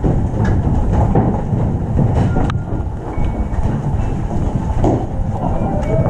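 Steady low rumble of a body-worn action camera on a moving player, with footsteps and gear rattle and scattered sharp clicks and knocks.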